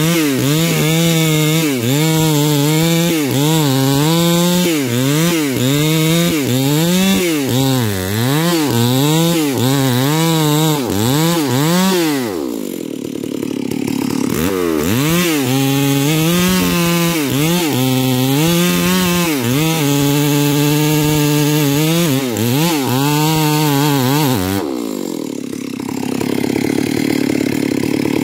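Two-stroke chainsaw cutting into a tree trunk at full throttle, its pitch wavering up and down as it bogs under load and recovers. It drops to idle about 12 seconds in, cuts again for about ten seconds, and drops back to idle near the end.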